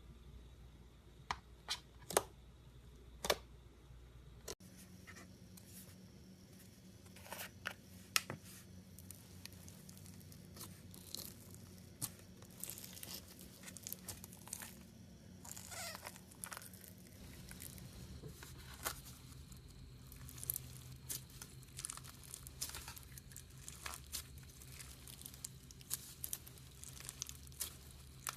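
Slime being handled: squeezed, stretched and torn, with many small crackles and clicks.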